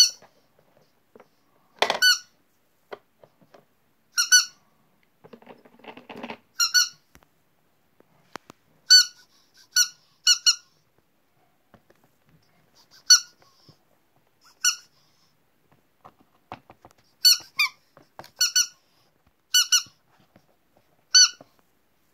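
Rubber squeaky pig toy squeezed again and again, giving about fourteen short, high-pitched squeaks at irregular gaps. A short burst of scraping and rattling from handling the toy on plastic comes about a quarter of the way in.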